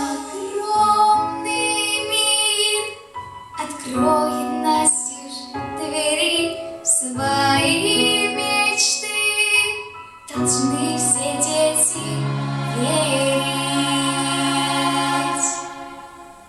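A woman's solo voice singing over an instrumental backing track, closing on a long held note that fades out near the end.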